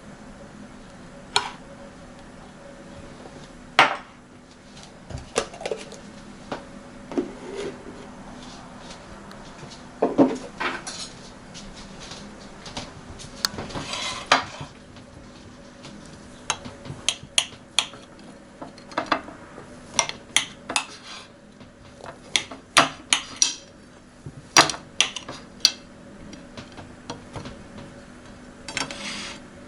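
Cutlery clinking against dishes: many sharp, irregular clinks, coming more often in the second half, over a faint steady hum.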